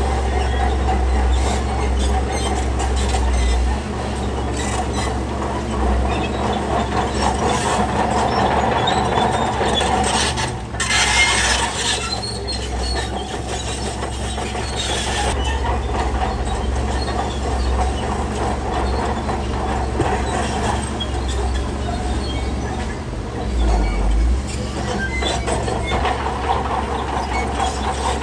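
Shantui DH17C3 crawler bulldozer at work: its diesel engine running steadily under the clank and squeal of its steel tracks. A louder, hissing burst comes about eleven seconds in.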